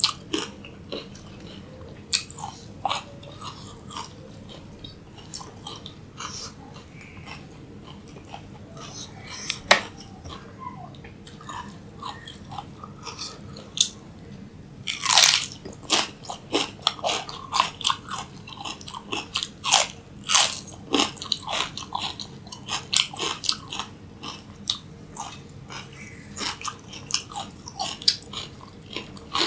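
Crisp biting and crunching of raw cucumber spears, chewed with the mouth close to the microphone. The chewing is sparse and irregular at first. About halfway through comes the loudest bite, followed by fast, steady crunching.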